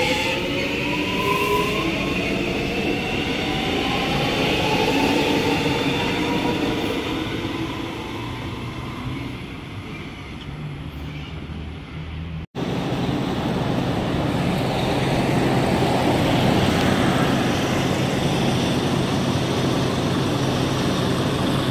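Electric suburban train's traction motors whining, the pitch slowly rising as it pulls away and fades. After a sudden cut about halfway through, a steady rumble with a low hum.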